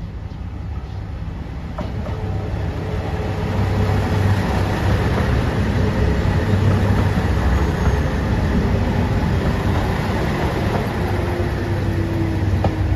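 A JR Shikoku 2700 series diesel express train arrives and slows past the platform. Its engine drone and the rumble of its wheels on the rails grow louder as it comes close. A faint tone falls slowly in pitch near the end as the train slows to stop.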